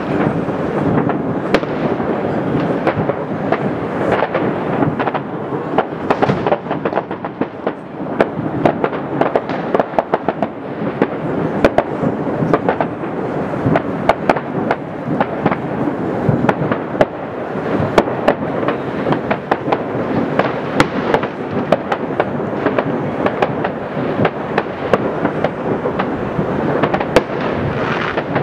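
Fireworks going off all over a city at New Year: a continuous rumble of many distant bangs, with sharper, closer pops scattered all through.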